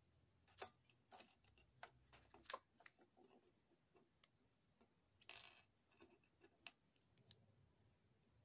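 Faint, irregular light clicks and ticks of a diamond-painting drill pen picking plastic rhinestone gems out of a plastic tray and pressing them onto a sticky sun catcher form, with one short scrape a little past halfway.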